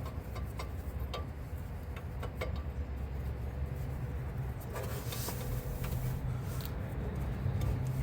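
Scattered light clicks and taps of hand tools on metal as a wrench works at a rear brake line fitting, over a steady low rumble.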